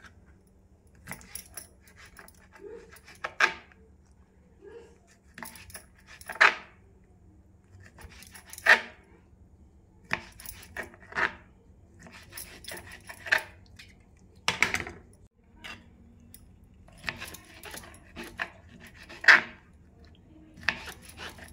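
Kitchen knife slicing squid tubes into rings on a plastic cutting board, with a sharp tap of the blade on the board every two to three seconds and softer clicks between.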